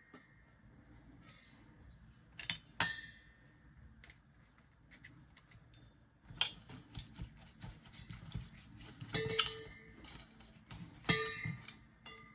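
Small metal parts and hand tools clicking and clinking in irregular bursts, a few strikes leaving a brief ringing tone, as a removed appliance door lock is worked on by hand.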